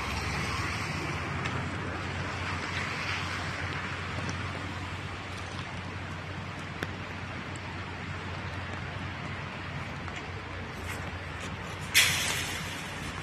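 Steady outdoor road-traffic noise with a constant low hum. About twelve seconds in comes one sudden, loud, hissy noise that fades within half a second.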